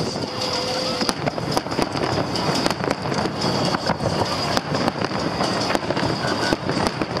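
Aerial fireworks going off in quick succession: a continuous run of sharp pops and crackles over a steady rumbling noise.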